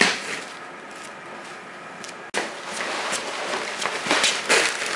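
Large plastic sacks being handled and stacked on a concrete floor: rustling of the sacks with knocks and footsteps. It is quieter for the first two seconds, then turns suddenly busier and louder.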